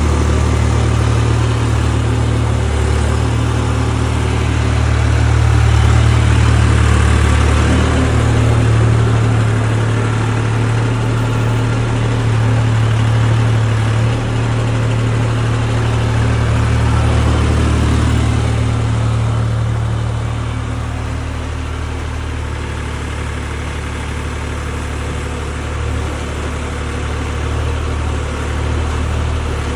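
Hightop mini excavator's engine running steadily while it digs, its load and level rising and falling; it works harder through the first half and eases off past the middle.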